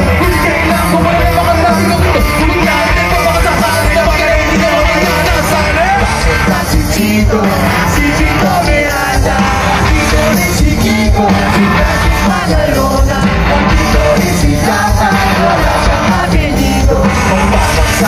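Rock band playing live through a concert PA, with a male lead singer, heard loud from among the audience.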